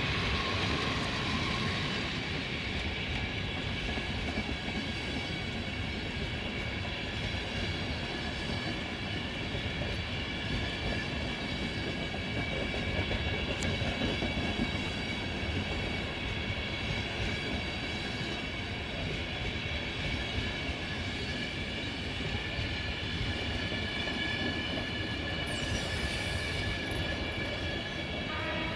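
Passenger coaches of a long train rolling past on the rails, with a steady rumble of wheels on track and a steady high-pitched ringing over it.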